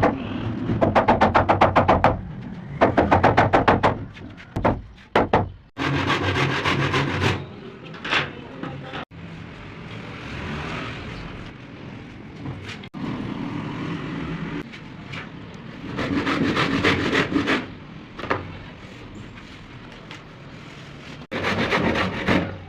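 Hand tools working wood, heard in several short cut-together clips: stretches of fast, rhythmic rasping on wood alternate with quieter scraping and handling.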